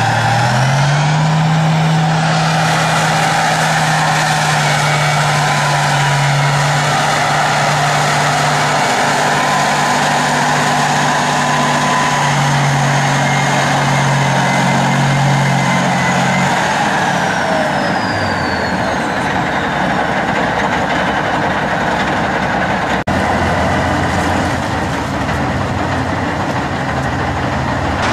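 T-90 tank's 1000-horsepower V12 diesel engine running under load as the tank drives over soft ground. The engine note rises about a second in, holds steady, then drops away about two-thirds of the way through, with a high whine falling at the same time.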